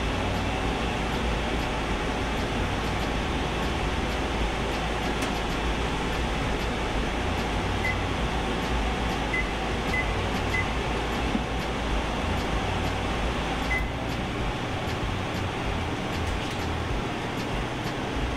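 Frigidaire over-the-range microwave's vent fan running steadily, switched on to check that the new install works. Short keypad beeps come about eight seconds in and a few more around ten seconds; after another beep near fourteen seconds the fan's low rumble lessens.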